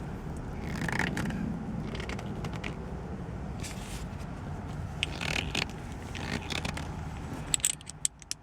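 MOMO shift knob being twisted and pushed down onto a car's gear shifter over a rubber sleeve, with short scraping and rubbing sounds over a steady low hum. A few sharp clicks come near the end.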